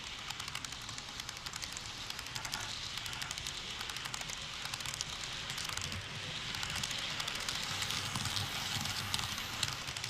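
A long model freight train rolling past close by, a steady rumble of the cars' wheels on the track with a dense, rapid clicking running through it.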